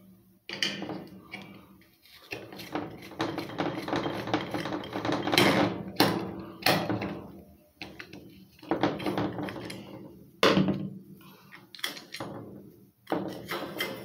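Repeated knocking, clattering and scraping of hard metal parts being handled while a Wizard box fan is worked on, with a brief low ring after several of the knocks.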